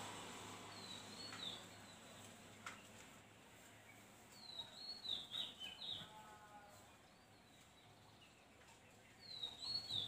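A bird singing faintly in the background: the same short, high chirping phrase three times, about four to five seconds apart, over a steady low hum.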